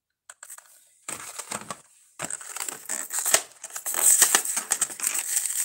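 Stiff plastic blister pack on a cardboard backing crackling as it is opened, starting with a few light clicks and becoming a dense, louder crackle about two seconds in.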